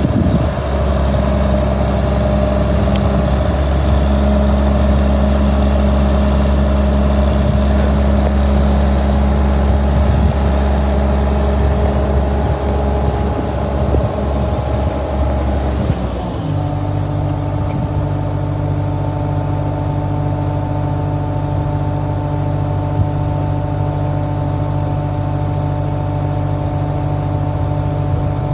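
Combine harvester's diesel engine running steadily at high speed with a high-pitched whine, then slowing a little past halfway and settling to a lower steady speed.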